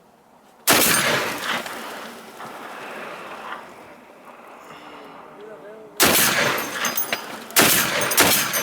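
Barrett M82 .50 BMG semi-automatic rifle firing: one shot about a second in, followed by a long fading echo, then two more shots about a second and a half apart near the end.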